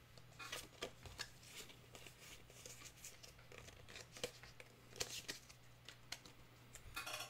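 Soft rustling and crinkling of a Pokémon booster pack's foil wrapper and trading cards being handled: a scatter of brief scrapes and crinkles, with a denser crinkle near the end, over a faint steady low hum.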